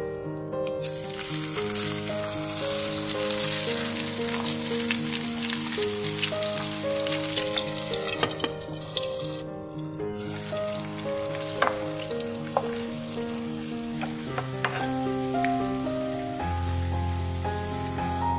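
Food sizzling in a hot frying pan, with a few sharp clicks; the sizzle starts about a second in and drops out briefly near the middle. Background music plays underneath.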